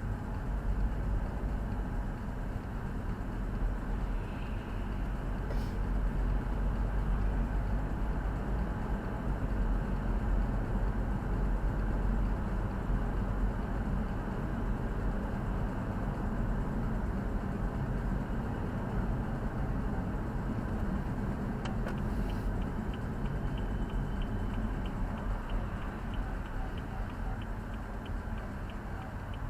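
Steady low rumble of engine and road noise inside a moving car's cabin. A little over two-thirds of the way in, a turn-signal indicator starts ticking at an even pace.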